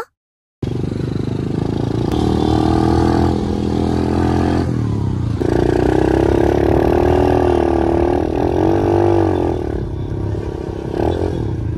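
125cc dirt bike's single-cylinder engine running as the bike is ridden. Its pitch falls abruptly about five seconds in, then climbs steadily as it picks up speed.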